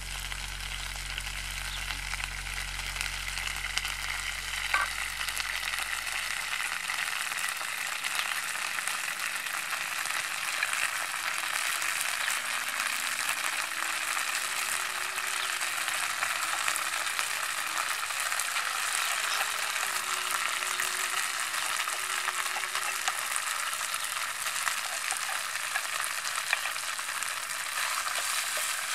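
Food frying in oil in a nonstick frying pan on a portable gas stove: a steady sizzle that gets gradually louder over the first ten seconds or so, with the spatula stirring the pan.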